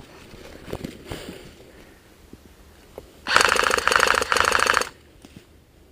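An airsoft electric rifle firing a rapid full-auto burst of about a second and a half, its gearbox cycling in a fast buzzing rattle with a brief break near the end. Faint knocks and rustles come before it.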